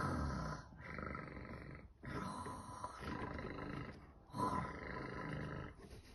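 Snoring: a series of about four low, rasping snores, each about a second long, the sound of the story's sleeping character in the house.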